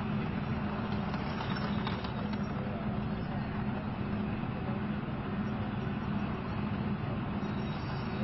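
Leopard 2A4 tank's V12 diesel engine running steadily with a low drone as the tank rolls past.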